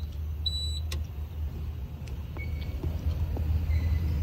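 Tata Ace hazard-light warning beeper giving short high beeps about every three quarters of a second, the last one under a second in, after which the four-way signal is switched off. A steady low hum and a few light clicks go on underneath.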